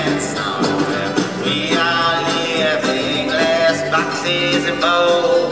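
Live band music in a country/bluegrass style: banjo and guitar picking over electric bass, with a wavering lead melody carried by a horn-like wind line or voice at the microphone.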